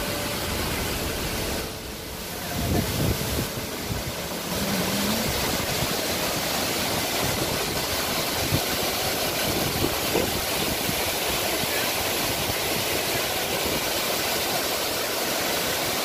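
Steady rushing roar of a large waterfall pouring onto rock in heavy flow swollen by days of rain. It dips briefly about two seconds in.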